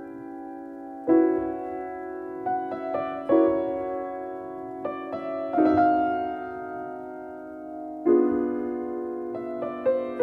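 Solo piano playing a slow piece: a full chord struck about every two seconds and left to ring away, with a few lighter notes between the chords.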